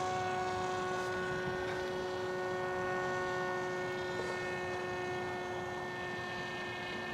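Radio-controlled Storm Chaser airplane's motor and propeller whining at a steady pitch under power as it is flown up high.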